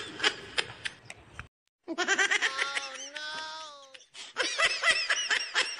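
Rapid giggling laughter, several pulses a second. It breaks off about a second and a half in. A drawn-out wavering sound is held for about two seconds, then the quick laughter starts again near the end.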